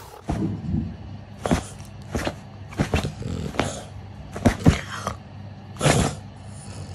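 A small dog growling in short bursts, about half a dozen times.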